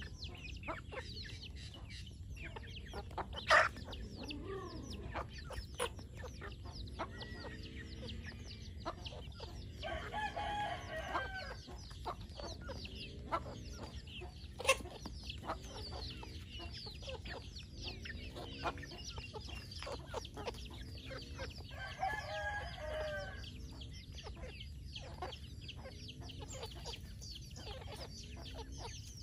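Free-range chickens clucking, a low cluck repeating about every second and a half under many short, high peeps, with two longer drawn-out crows, about a third of the way in and again about three quarters in. Two sharp taps stand out, a few seconds in and about halfway.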